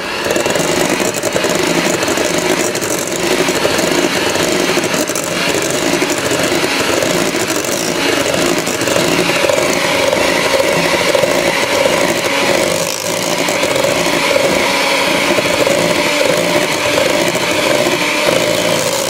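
Electric hand mixer running steadily, its beaters churning a thick almond-flour batter in a stainless steel bowl. The motor switches on right at the start and runs with a steady whine under a loud whirring.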